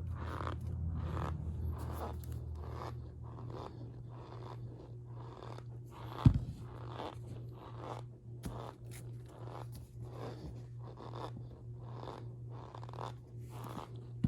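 Powder such as cornstarch being squeezed and pressed by hand, giving a repeated squeaky crunch about twice a second. One sharp thump about six seconds in is the loudest sound.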